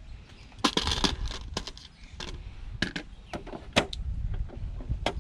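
A run of about ten short, separate clicks and clinks: small metal screws and the plastic casing parts of a sewing machine being handled and dropped into a plastic tub during disassembly.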